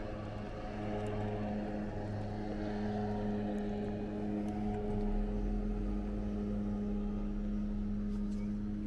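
Engine running steadily with a low, even hum; its deepest note drops lower about halfway through.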